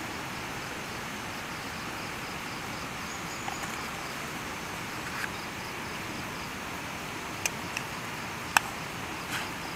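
Steady outdoor hiss, broken near the end by a few sharp clinks of a metal spoon against a stainless steel bowl, the third the loudest.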